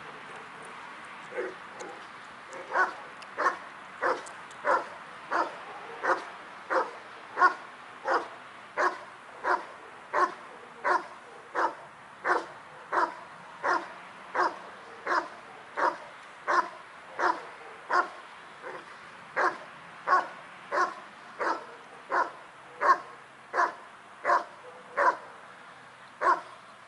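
Rottweiler barking at a helper in a protection blind, the hold-and-bark stage of IPO protection work: single loud barks in a steady rhythm, about three every two seconds, beginning about a second and a half in.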